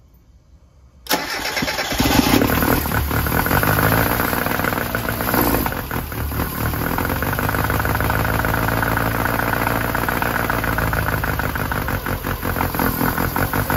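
Car engine fitted with individual throttle bodies starting about a second in, then running steadily with a fast, even firing pulse.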